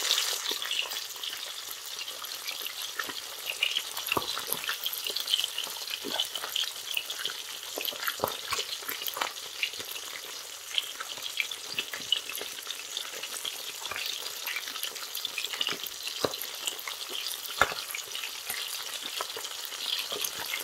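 Whole tilapia frying in hot oil: a steady sizzle with scattered crackles and pops of spattering oil, and one louder pop late on.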